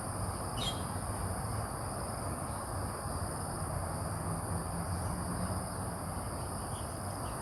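Outdoor ambience: insects trilling steadily at a high pitch over a low steady hum, with one short falling bird call about half a second in.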